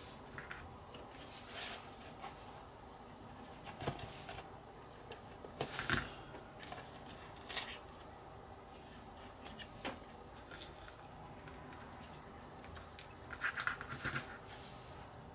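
Masking tape being peeled and picked off a painted plastic model hull with tweezers: scattered small crinkles and clicks of the tape and the tweezer tips, with a quick run of crackles near the end.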